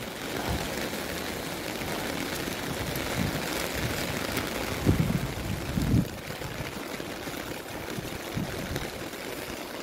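Steady rain falling on an open umbrella overhead and the wet street, a even hiss that swells a little in the middle, with a couple of low thumps about five and six seconds in.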